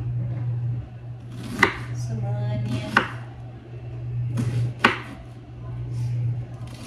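Kitchen knife chopping cauliflower on a wooden cutting board: a few sharp chops about a second and a half apart, over a steady low hum.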